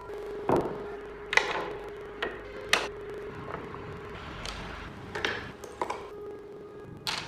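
About half a dozen sharp, irregularly spaced taps and clicks of woodworking tools on wood over a steady low hum.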